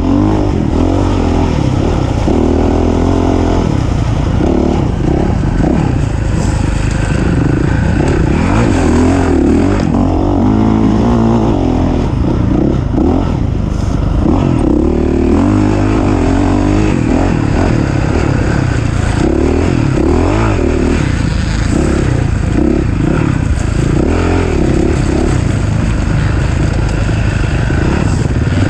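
Off-road racing engine revving up and down continuously under changing throttle, its pitch rising and falling every second or two.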